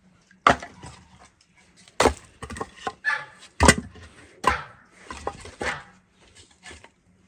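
Chopping blows on wood: a series of irregular, sharp knocks, several of them loud, spaced about half a second to a second and a half apart.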